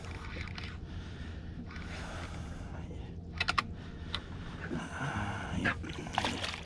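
Spinning reel and line working as a hooked tautog is brought to the surface, with a few sharp clicks about three and a half seconds in and a burst of water splash as the fish is swung out of the water near the end. A steady low rumble runs underneath.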